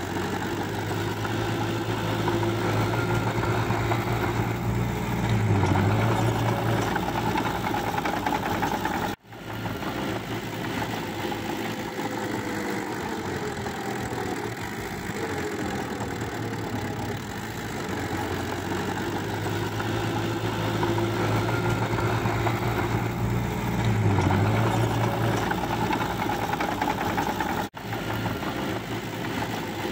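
Small crawler bulldozer's diesel engine running steadily as it pushes wet mud, with a constant low hum. The sound drops out for an instant about a third of the way in and again near the end.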